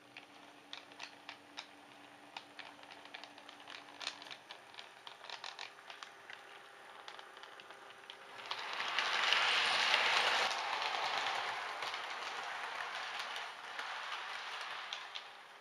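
Model train running on layout track: light irregular clicking of its wheels over the rail joints, then a louder rushing rumble about eight seconds in as the model multiple unit passes close by, easing off and fading near the end.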